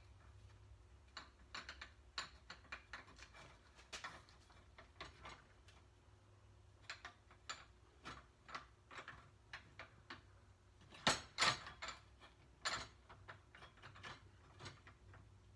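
Scattered light metallic clicks and knocks as a steel roll-cage tube and its notching tool are handled and adjusted, with a louder pair of knocks about 11 seconds in.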